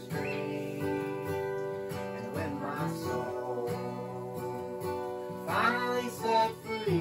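Acoustic guitar music with held notes and a few notes gliding upward in pitch, about halfway through and again near the end.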